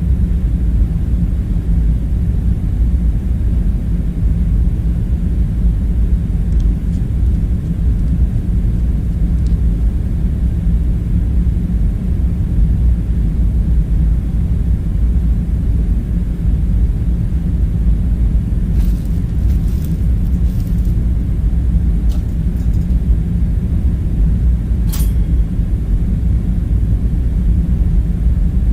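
Steady low rumbling hum of background room ambience, with a few faint clicks about two-thirds of the way in and one sharper click near the end.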